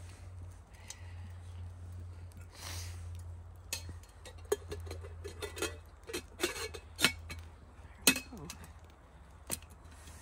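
Metal clinks and knocks of a 12 cm Zebra stainless steel billy can's lid and wire bail handle as it is closed and picked up: a cluster of sharp taps in the middle, then a few louder single clinks, over a steady low hum.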